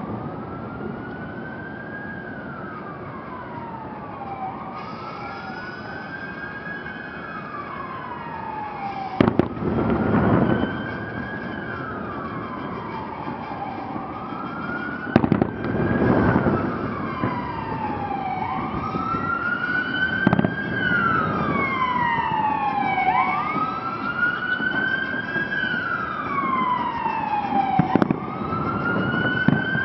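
A siren wailing, its pitch rising and falling in a steady cycle about every four seconds, with firework shells bursting with sharp bangs four times.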